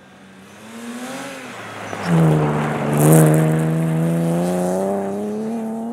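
Rally car engine at high revs as the car approaches and passes close by on a snowy stage, loudest two to three seconds in with a brief hiss, then pulling away with its note rising slowly.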